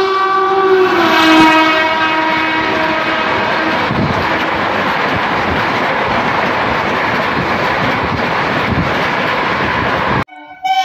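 Train horn sounding loudly, its pitch dropping about a second in as the train passes, then the steady rumble and clatter of passenger coaches running through at speed. The sound cuts off suddenly near the end and a horn starts again.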